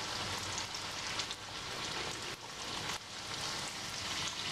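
Mini puris for pani puri deep-frying in hot oil in a kadai: a steady sizzle with fine crackles as the puris puff up.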